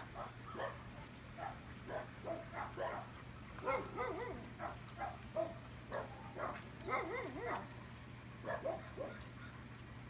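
Dogs barking and yipping in a run of short, sharp barks, some in quick clusters, loudest about four and seven seconds in.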